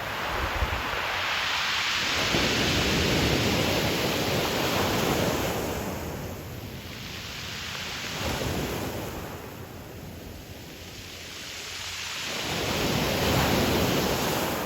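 Ocean surf breaking and washing up a pebble beach, swelling and fading in about three slow surges, with the loudest one in the first five seconds.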